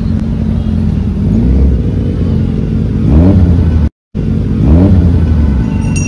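Superbike engines running at low speed in a group, with two short throttle blips whose pitch rises, about three and five seconds in. The sound cuts out for a moment between them.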